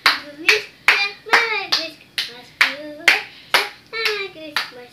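Rhythmic hand clapping, about two claps a second, with a young child's voice singing along.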